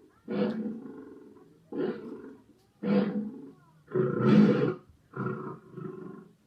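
A series of six short lion-like roars in quick succession, each lasting under a second.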